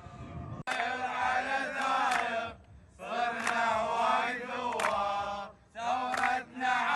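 A group of men chanting together in unison, in short loud phrases with brief breaks between them. The chant cuts in abruptly about half a second in, replacing a quieter voice.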